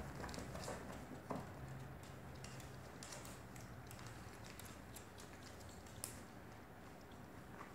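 Faint, scattered clicks and crinkles of a plastic water bottle as a Shih Tzu puppy noses and mouths it, with a soft knock about a second in and a sharper click near the end.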